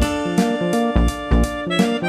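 Upbeat background music with instruments and a regular beat.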